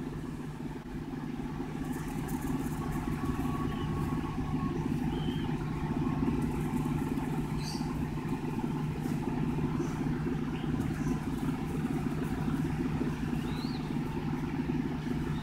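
A steady low mechanical hum, like an engine or motor running, with no change in pitch.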